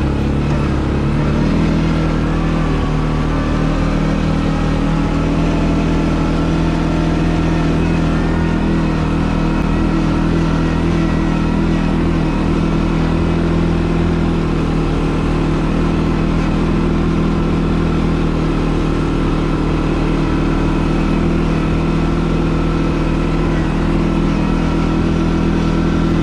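CFMoto 450L ATV's single-cylinder engine running under way at a fairly constant speed, with a small step up in pitch about a second in.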